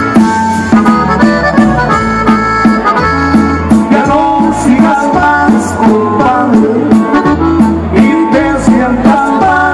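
Norteño band playing live through a loud PA: an accordion carries the melody over guitar, electric bass and drums in a steady dance rhythm.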